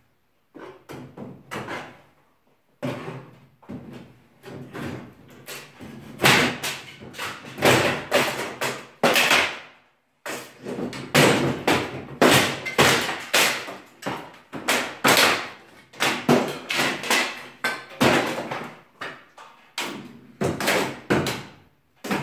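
A long metal pry bar striking and prising at wooden ceiling battens and panelling during ceiling demolition: a run of irregular bangs, knocks and cracks of wood being forced loose, with brief lulls.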